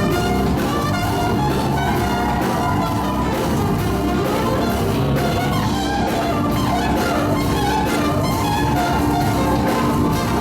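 Gospel groove band playing an instrumental stretch of a hymn arrangement, with brass and drum kit.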